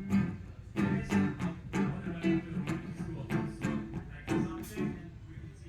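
Guitar strummed in short chords during a band's sound check, about a dozen strokes that stop about five seconds in.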